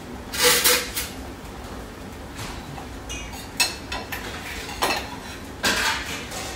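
Metal spoon and fork clinking and scraping against a stainless steel pan while working spaghetti through a creamy cheese sauce: a series of sharp clinks, a few ringing briefly.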